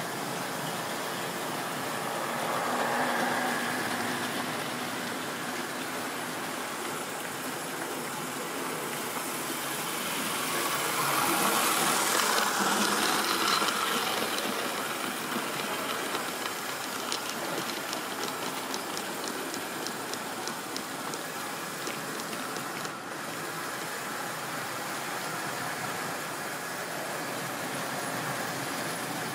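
A model railway train of tank wagons running past on the track, the rolling rumble of the wheels rising to its loudest about halfway through and then fading. A run of quick, even clicks follows as it draws away.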